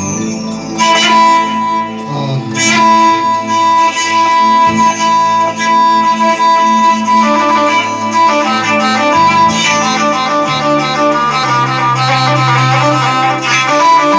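Instrumental Arabic music with no singing: a string-like melody holds long notes, then breaks into quick runs about halfway through, over a moving bass line.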